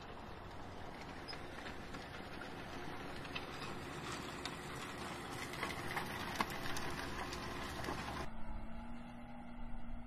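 John Deere tractor's diesel engine working under load as it pulls a Kverneland five-furrow plough through the soil, with many small clicks and rattles from soil and stones on the plough bodies. About eight seconds in the sound changes abruptly to a steadier engine hum.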